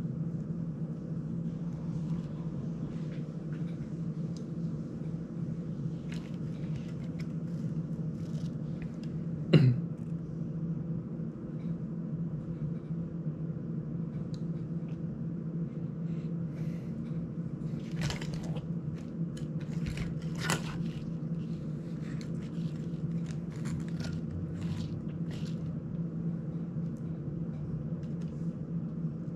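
Small clicks, taps and scrapes of hands working on a GEPRC CineLog35 cinewhoop drone's plastic prop guards and frame, with a sharper click about ten seconds in and two more about two-thirds of the way through, over a steady low hum.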